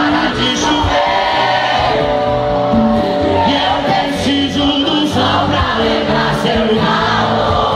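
Live sertanejo band music played loud, with sung melody from several voices together.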